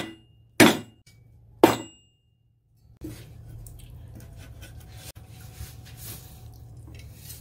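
Two hard chops about a second apart: a Chinese cleaver striking through the chicken's hard bones onto a wooden cutting board, each followed by a brief ring from the steel blade. Then faint light clicks and scrapes as the chopped pieces are gathered onto the cleaver.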